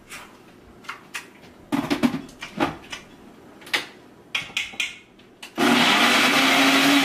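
A few scattered clicks and knocks, then about five and a half seconds in a blender starts suddenly and runs steadily, blending a smoothie.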